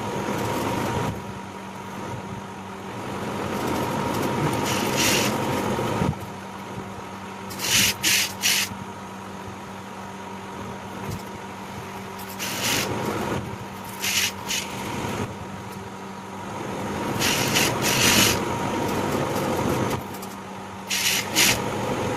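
Industrial lockstitch sewing machine stitching piping onto a blouse neck: its motor hums steadily while the needle runs in several bursts of a few seconds each, with short rustles of fabric being handled and turned between the runs.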